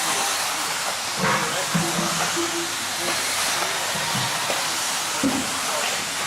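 A pack of 1/10-scale 4WD electric RC buggies racing round a dirt track, giving a steady high hiss of motors and tyres.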